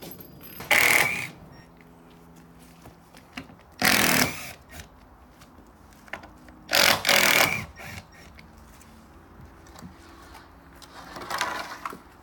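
Handheld power drill running in four short bursts of about half a second to a second each.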